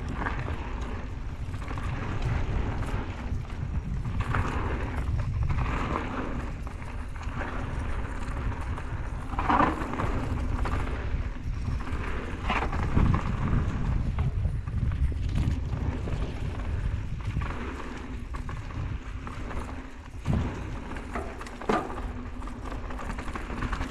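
Mountain bike rolling fast down a dirt trail: wind buffeting the microphone and tyre rumble, with sharp knocks and rattles from the bike over bumps, the loudest about ten seconds in and again near thirteen and twenty seconds.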